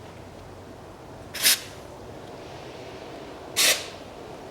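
A socket wrench working on a stuck anti-roll bar link nut: two short rasping bursts about two seconds apart. The nut will not come off because the ball pin turns with it.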